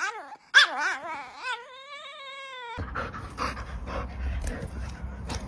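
A dog whining and yowling in rising and falling calls, ending in one long, slightly wavering held note that cuts off abruptly about three seconds in. After it, a low steady hum with scattered sharp clicks.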